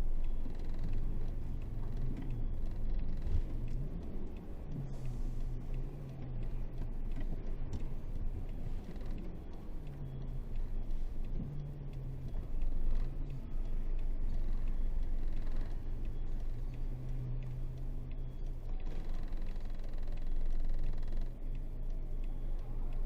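Isuzu 8x4 30-ton truck's diesel engine running under way, a steady low drone whose pitch rises and falls several times as the revs change.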